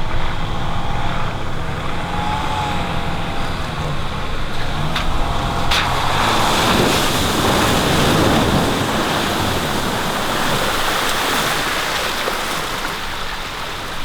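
Off-road 4WD vehicle driving on a bush track with its engine running. About six seconds in, a loud rushing noise rises and continues, with a couple of sharp clicks just before it.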